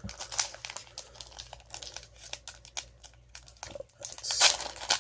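Foil wrapper of a Pokémon trading card booster pack crinkling and being torn open: a run of short crackles, with a louder tearing rustle about four and a half seconds in.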